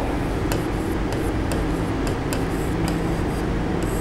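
Chalk writing on a blackboard: a series of light ticks and scratches, heard over a steady background hiss and hum that is the loudest thing throughout.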